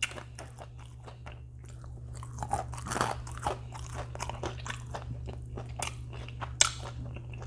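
Close-miked chewing and biting of crispy fried chicken: many irregular small crunches and crackles of the breading as the drumstick is eaten.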